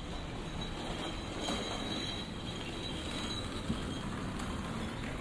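Rainy city street ambience: a steady low rumble of traffic and hiss over wet pavement, with faint high squealing tones about a second and a half in.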